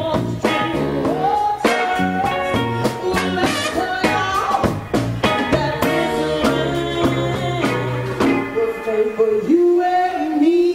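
Live funk-soul band playing, with electric bass, electric guitar and steady drum hits, while a woman sings over it. Near the end she holds one long note.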